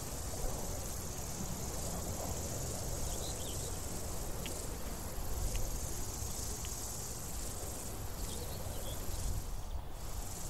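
Field ambience: a steady high chirring of insects in the grass over a low rumble, with a few faint short chirps scattered through.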